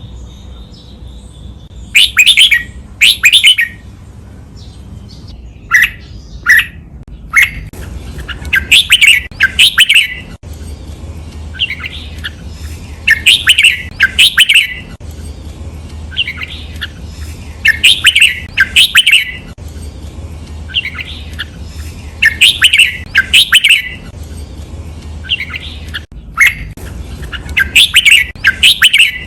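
Red-whiskered bulbul singing its song in doubled bursts: a short, loud chirping phrase given twice in quick succession, repeated every four to five seconds over a low steady hum.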